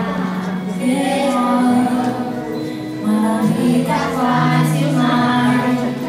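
A group of children singing a song together over a musical accompaniment, in long held notes that change about once a second.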